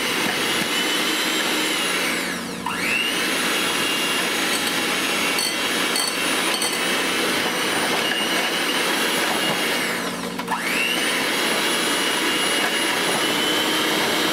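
Electric hand mixer running with its beaters in a glass bowl, working butter into shortbread crumbs, flour and brown sugar for a crumb topping. The steady motor whine drops sharply in pitch and climbs back twice, about two and a half seconds in and about ten seconds in. A few faint clicks come near the middle.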